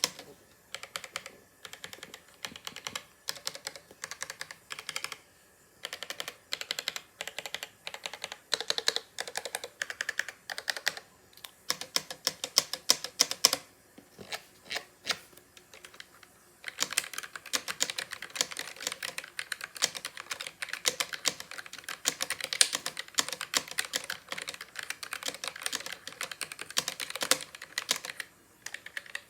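Keys of a stock Roccat Vulcan mechanical keyboard being typed on: short bursts of keystrokes with pauses between them at first, then fast continuous typing for about ten seconds from a little past the halfway point.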